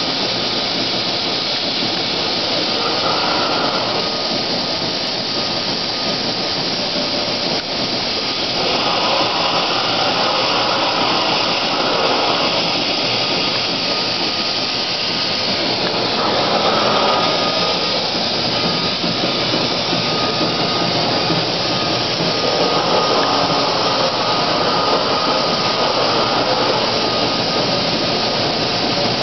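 Large vertical lathe turning a big stainless steel cylinder: steady machine and cutting noise with a faint constant whine, swelling and fading every several seconds.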